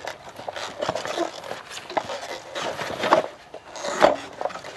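Homemade halftrack model's rubber-band track with steel tooth links and its road wheels clanking and knocking irregularly as the model is pushed over a block, with one louder knock about four seconds in.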